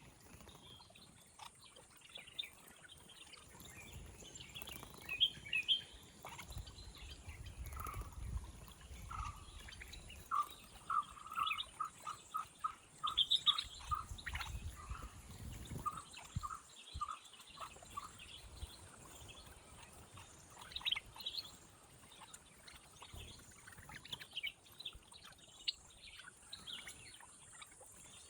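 Garden birds chirping and calling, with scattered short high chirps throughout. From about a third of the way in, one bird repeats a lower short note at a steady pace, several times a second, for several seconds.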